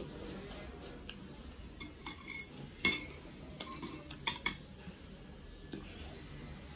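Chopsticks clinking and tapping against a plate of food as a helping is picked up: a handful of sharp clinks, the loudest about three seconds in.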